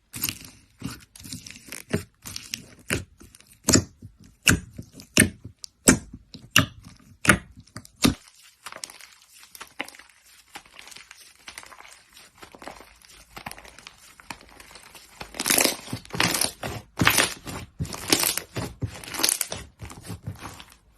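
Slime being pressed and squeezed by hand, giving sharp crackling pops about one to two a second. After a quieter stretch midway, a denser run of louder crackles comes in the last few seconds.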